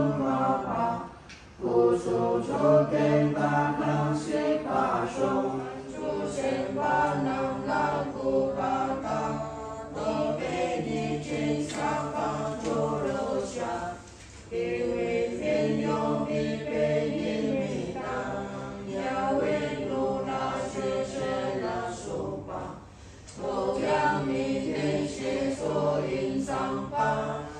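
A group of Tibetan Buddhist devotees chanting a prayer together in unison. The chant runs in long sung phrases with short pauses for breath about a second in, about halfway through, and a few seconds before the end.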